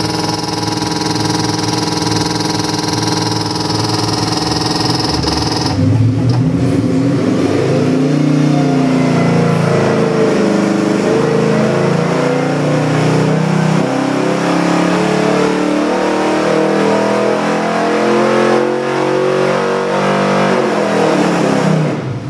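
Stroked 351 Windsor Ford V8 on an engine dynamometer, idling steadily for about six seconds, then revving up and pulling hard under the dyno's load through a sweep run, its pitch climbing. Near the end the revs fall away quickly as the run finishes.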